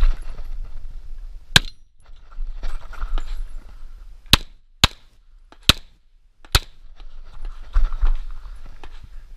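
Tanfoglio Stock II 9×19 mm pistol firing five single shots: one about a second and a half in, then four more in quick succession over about two seconds.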